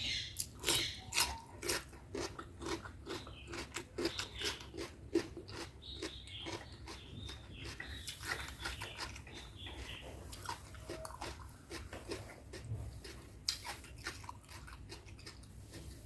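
Close-miked chewing and mouth sounds of a person eating chicken curry with rice, a run of quick, irregular clicks and smacks.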